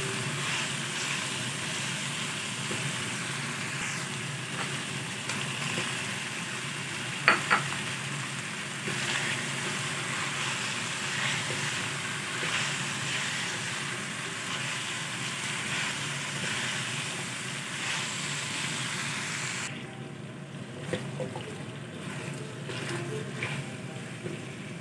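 Chicken, carrot and potato pieces sizzling in a hot wok while a spatula stirs and scrapes them, with one sharp knock about seven seconds in. Near the end the sizzle turns quieter, leaving a few small clicks of the stirring.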